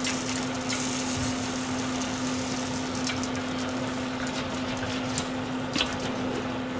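Chicken thighs and green onions sizzling on an IH cooker's grill tray over a steady electric fan hum, with a few light clicks of chopsticks.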